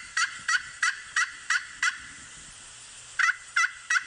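Turkey calling in a series of short, evenly spaced notes, about three a second; the calls stop about two seconds in and start again a second later.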